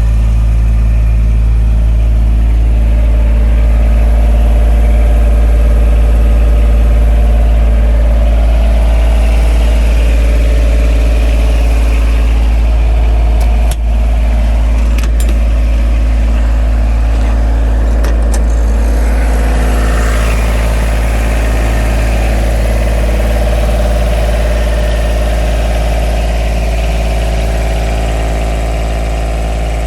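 CompAir C 15-14 mobile compressor running, its Yanmar 3TNV76 three-cylinder diesel engine holding a steady speed. There is a brief dip and a few faint clicks about halfway through.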